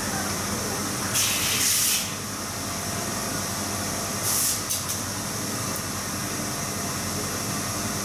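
Digital inkjet printer printing onto white film fed from a roll: a steady machine hum, with two short hissing sweeps, one about a second in lasting nearly a second and a shorter one about four seconds in.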